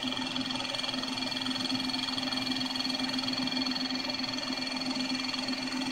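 Grizzly G0678 knee mill under Centroid Acorn CNC control running steadily while it cuts a very small chamfer in scrap aluminum with an 80-degree countersink tool. It is a constant low hum with a steady high-pitched whine over it.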